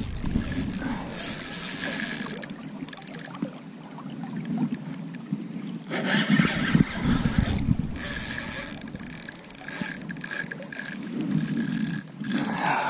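Spinning fishing reel being cranked by hand, its gears whirring with uneven ratcheting clicks.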